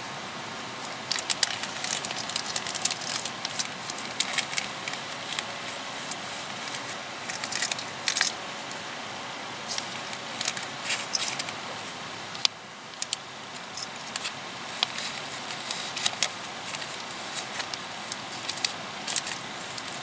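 Scattered, irregular sharp crackling clicks, some in quick clusters, over a steady outdoor hiss.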